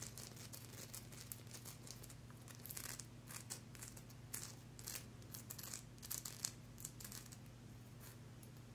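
Fingers and nails rubbing and scratching a fan-shaped piece of black kyanite close to the microphone: a soft run of crisp, scratchy crackles that thins out near the end.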